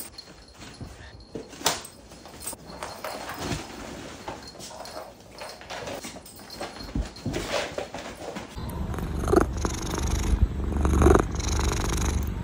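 Scattered light knocks and rustles of a dog and cat at play, then a domestic cat purring close up, a steady low rumble with two short louder sounds about 9 and 11 seconds in.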